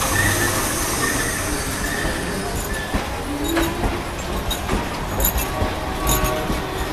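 Canadian Pacific passenger cars rolling past on steel wheels, a steady rumble with scattered sharp clicks from the wheels crossing rail joints and a few short wheel squeals.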